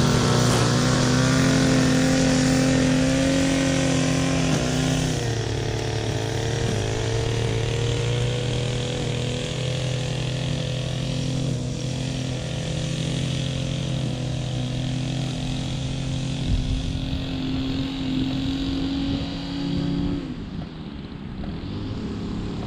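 Small gasoline engine of lawn-care equipment running steadily at high speed with an even, unbroken drone. About twenty seconds in the steady tone breaks off, leaving a rougher noise.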